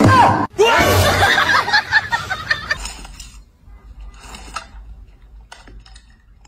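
Human laughter, loud for about the first three seconds, then dropping away to quiet with a few faint clicks.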